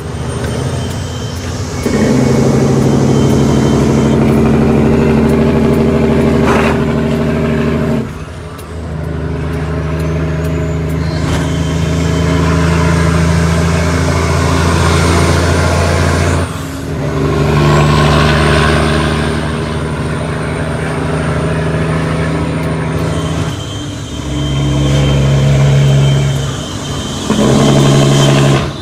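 Cummins ISX diesel engine of an International ProStar truck running loud and steady under load. Its sound drops briefly several times, as when the driver shifts between gears of the 18-speed transmission.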